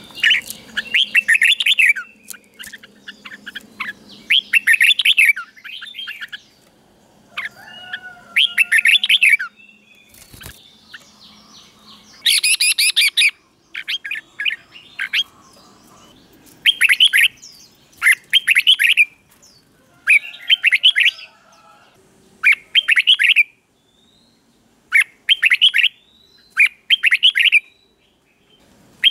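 Red-whiskered bulbul singing: short phrases of quick notes, each about a second long, repeated every two seconds or so with short pauses between.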